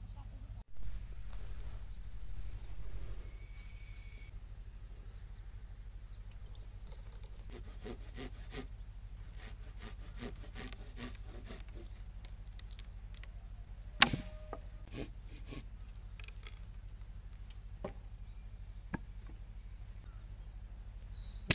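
Dead wooden branches being broken up for firewood: a run of small cracks and rubbing about eight to twelve seconds in, then one loud sharp snap about fourteen seconds in, followed by a few lighter cracks.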